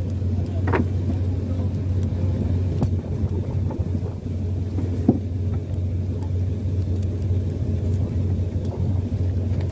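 A fishing boat's engine running with a steady low hum, with a few light knocks and clicks as a hand-line frame is handled.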